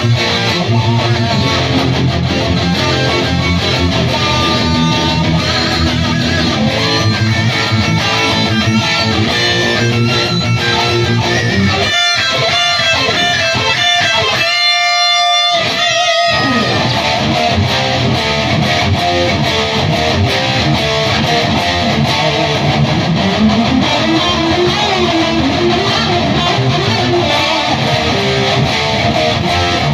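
Electric guitar played through a Bugera 333XL tube amp head and Mesa cabinet, playing a full song part. About twelve seconds in, the low end drops away for a few seconds, leaving a few clear ringing notes, then the full sound comes back.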